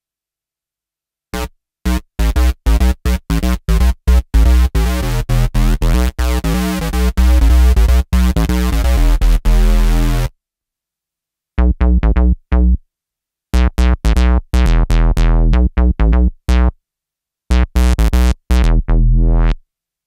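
Sequential OB-6 analog synthesizer playing a bass patch with no added effects: a fast run of short, punchy notes begins about a second in and stops about halfway. After a short pause, a second bass patch plays choppy stop-start phrases.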